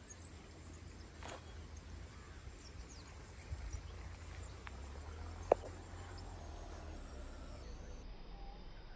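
Open-air ambience: a steady low rumble of wind on the microphone with faint high chirping scattered through it, and one sharp click about five and a half seconds in.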